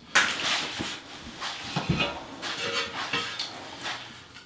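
Steel notched trowel scraping thinset mortar and clinking against the mortar bucket, in a few irregular strokes with a sharper knock just after the start and another about two seconds in, while a porcelain tile is picked up for back-buttering.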